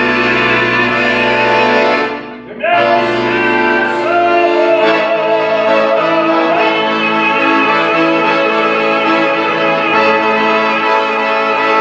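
Closing bars of a song with instrumental accompaniment: after a brief break about two and a half seconds in, a long held note with vibrato is sustained over the accompaniment.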